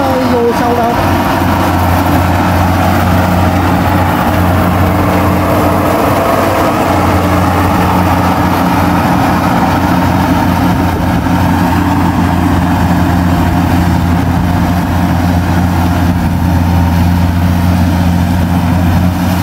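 Rice combine harvester running steadily while cutting a rice field: a constant, even engine drone with a strong low hum.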